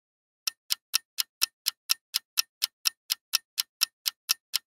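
Clock-ticking sound effect: crisp, even ticks, about four a second, starting about half a second in.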